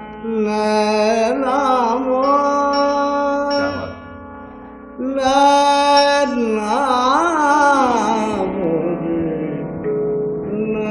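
A male Hindustani classical singer holding long vowel notes with wavering, gliding ornaments, accompanied by a surmandal box zither whose strings are picked to reinforce the sung notes. The voice stops for about a second some four seconds in, leaving the zither ringing, then resumes.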